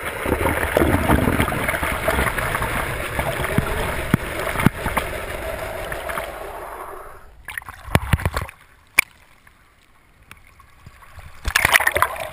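Water rushing past a GoPro in its waterproof housing while it is towed underwater on a plana board. A few knocks come about seven to eight seconds in, then the rush falls away to a low hiss, and bubbling churns back in near the end.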